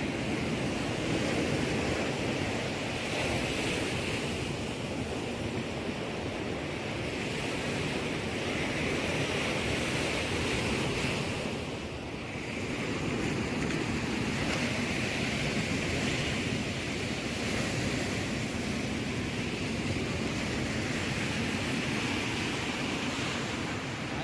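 Sea surf washing on the beach: a steady rushing noise that swells and eases every few seconds, dipping briefly about halfway through.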